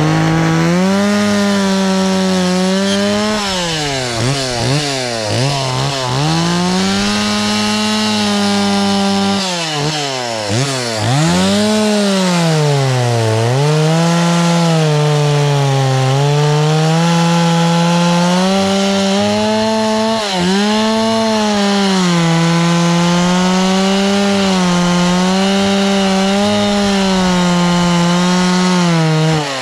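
Stihl chainsaw running at high throttle while carving into a redwood log. The engine pitch sags several times as the chain bites into the wood and climbs back as it frees up, then holds fairly steady through the latter part of the cut.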